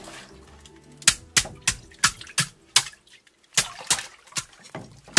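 River ice being chopped with a hand tool in a plastic barrel of water: a run of sharp strikes, about three a second, with splashing and a short pause midway.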